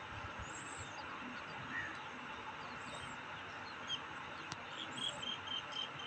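Open-air insect and bird sounds over a steady hiss: a high insect chirp repeats about every two seconds, and near the end a bird gives a quick run of short high notes.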